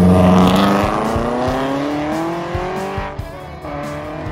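Ferrari-engined Alfa Romeo 105 accelerating hard off the start line, its exhaust note climbing steadily in pitch for about three seconds and then fading as the car pulls away. The exhaust is extremely loud.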